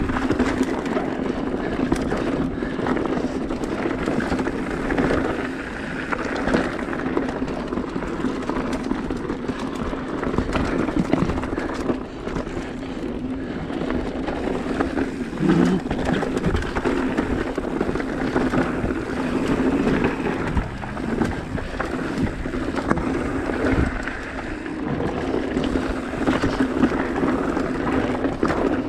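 Mountain bike ridden over a rocky trail: tyres crunching and knocking on rock and the bike rattling, with wind buffeting the microphone.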